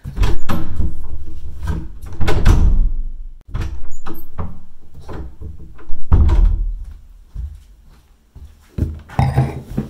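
A room door being opened and shut, with four loud thuds about two seconds apart, each dying away over about a second, among smaller knocks.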